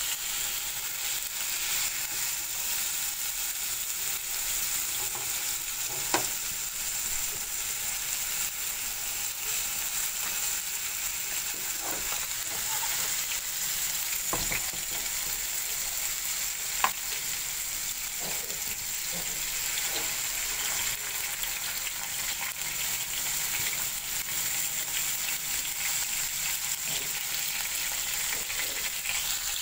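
Skewered chicken tikka pieces sizzling steadily in shallow oil on a flat tawa pan over low heat, with a couple of sharp clicks about 6 and 17 seconds in.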